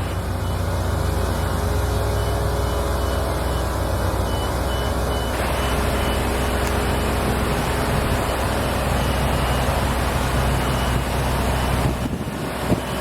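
Class 70 diesel locomotive's engine running steadily under load, with a faint high beep repeating over it. About twelve seconds in, the sound changes abruptly.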